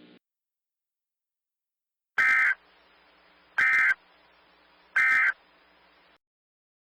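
Emergency Alert System digital data bursts: the end-of-message code sent three times as short, screechy data bursts about a second and a half apart, marking the end of the alert.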